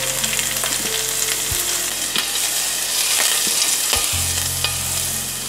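Olive oil sizzling steadily as minced onion, garlic and chopped chili pepper fry in a nonstick pan, with a few light knocks as the pan is moved and shaken on the burner.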